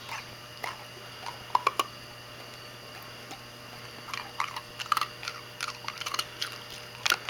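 A dog crunching and chewing an ice cube: a few sharp crunches in the first two seconds, then a quick run of crunches through the last three seconds.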